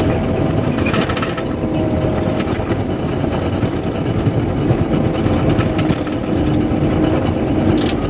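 Cat D5K LGP bulldozer running and travelling, heard from inside the cab: a steady diesel engine with the rapid rattle and clank of its steel tracks.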